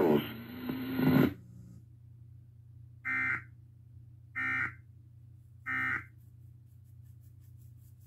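Emergency Alert System end-of-message signal coming through a television speaker: three short bursts of screeching digital data tones, a little over a second apart, which mark the end of the alert. A voice finishes speaking just before them.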